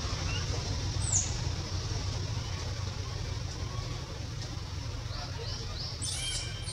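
Outdoor ambience with a steady low rumble and a hiss. A few short, high chirps come about a second in and again about five to six seconds in.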